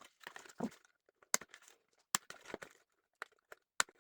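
Doll packaging being worked open by hand: short bursts of plastic and cardboard crinkling and tearing, broken by several sharp clicks.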